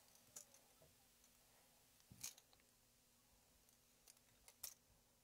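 Near silence with a handful of faint, sharp clicks as thin metal craft wire is wound around a small jeweler's tool into a tight spiral.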